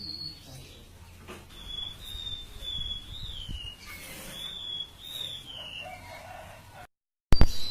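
Siur-siur laut songbird singing: a run of high, thin whistled phrases that waver and slide down in pitch, repeated over and over. Near the end the sound drops out for a moment and comes back with a loud knock.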